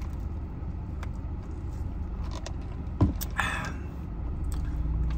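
Steady low hum of a car idling, heard inside the cabin. A sharp click comes about three seconds in, followed by a short noisy rustle.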